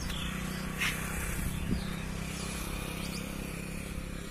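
Steady low mechanical hum over a background haze, with a few short high chirps and one sharp click about a second in.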